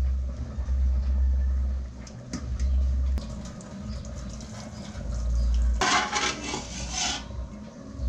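Starchy water from par-boiled rice being drained out of a metal pot into a stainless-steel sink, splashing for about a second and a half near the end. A few clanks of the pot come before it, over a low rumble.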